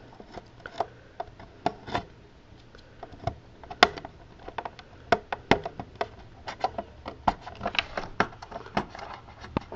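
Plastic parts of a Westinghouse Unplugged cordless vacuum's base being handled and worked loose, giving irregular light clicks and taps. The sharpest click comes about four seconds in.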